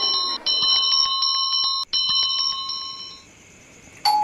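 A bell ringing continuously with a fast, even trill, broken twice by short gaps, and stopping about three seconds in. At the very end a doorbell starts its two-note ding-dong.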